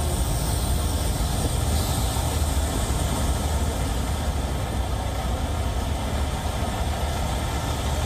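Steady low rumble of idling semi-truck diesel engines.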